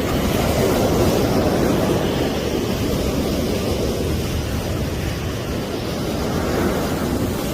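Sea surf washing onto the beach in a steady rush, with wind rumbling on the microphone.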